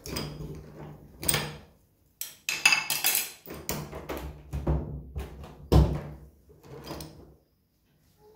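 Mobile phone being handled and jostled against clothing as it is carried, with irregular knocks, thuds and rubbing. It goes briefly silent about two seconds in and again near the end.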